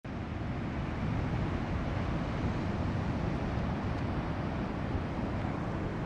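Steady rushing noise of ocean surf and wind buffeting the microphone, heaviest in the low end.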